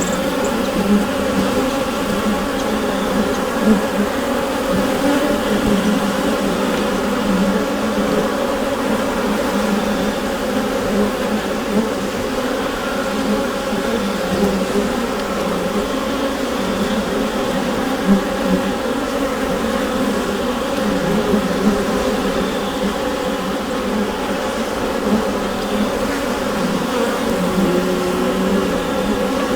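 Many bees buzzing together inside a hive: a dense, steady hum with a few bands of overtones, wavering slightly in level and pitch.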